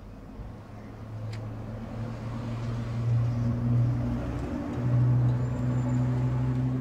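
Pickup truck driving past on a road, a steady engine hum that builds over a few seconds and is loudest about five seconds in.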